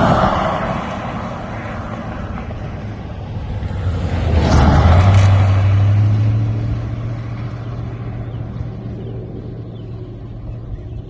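Vehicles passing close by on a paved road. A short swell of tyre and engine noise comes at the start, and a pickup truck passes about four to five seconds in, its engine leaving a low hum as it drives away.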